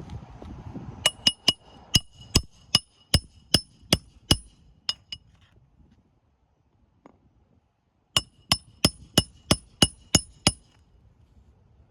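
Hammer striking a steel roof snake to drive roofing nails under shingles, in quick ringing metallic blows about three a second. A run of about a dozen blows is followed, after a short pause, by a second run of about eight.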